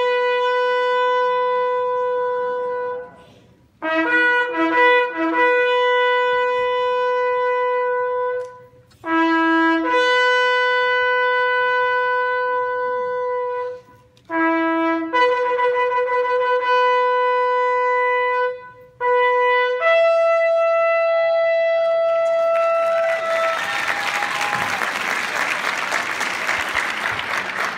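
Shofar sounded in five long blasts, each starting on a short lower note and jumping up to a held higher one, with a few short broken notes about four seconds in. The last blast rises to a still higher note. Near the end the audience breaks into applause.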